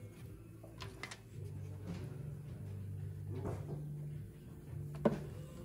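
Handling sounds of a compression tester hose being moved between spark plug holes on a four-cylinder engine. There are a few light clicks, then a sharper knock about five seconds in, over a low steady hum.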